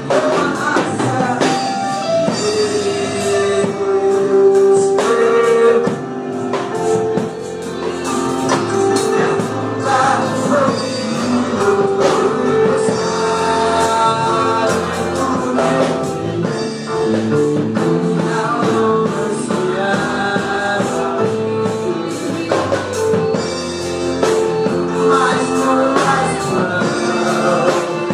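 A man singing a Portuguese gospel praise song into a microphone, holding long notes, over a continuous accompaniment with drums.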